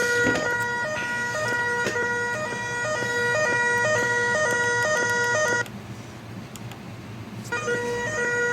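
French fire alarm sound effect playing through a small wireless Bluetooth speaker: a steady electronic alarm tone with a few clicks over it. It cuts out about five and a half seconds in and comes back about two seconds later.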